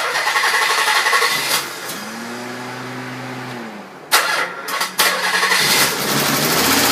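Nissan 300ZX V6 engine started for the first test run after a timing belt replacement. It fires with a sudden loud start and runs unevenly, dipping in the middle and surging loudly twice. It then settles into a steadier run near the end.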